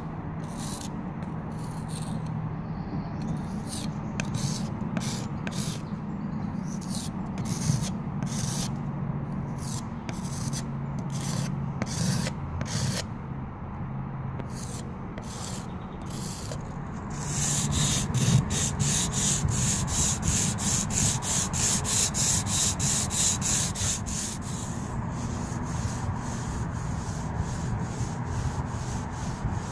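Putty knife scraping and spreading wood filler over holes in a painted wall, in repeated strokes. A little past halfway the strokes turn faster and louder, about three a second, as a tool is rubbed back and forth over the patched wall.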